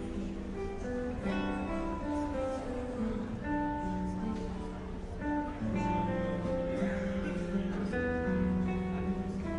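Music led by plucked and strummed acoustic guitar, notes changing about every half second.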